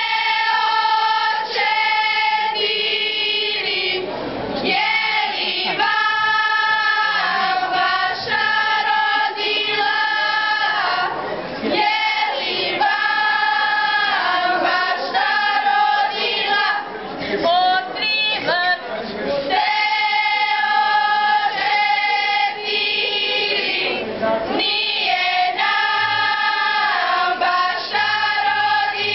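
A group of young voices singing a Bosnian folk song together, unaccompanied, in phrases of long held notes with short breaks for breath between them.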